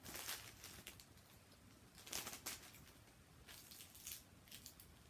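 Faint crinkling of a candy wrapper being handled, in a few short rustles.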